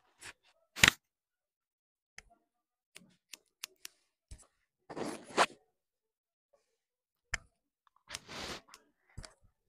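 Haircutting scissors snipping and clicking through wet hair, with one sharp click about a second in as the loudest, scattered small ticks after it, and two short rushing noises, one midway and one near the end.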